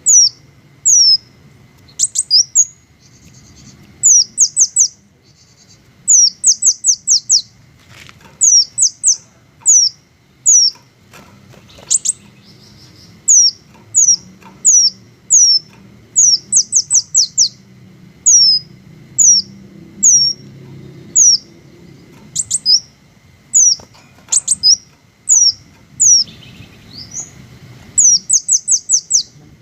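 Green hummingbird singing: repeated short, high chirps that sweep downward, some single and some in quick runs of three to five, with brief pauses between.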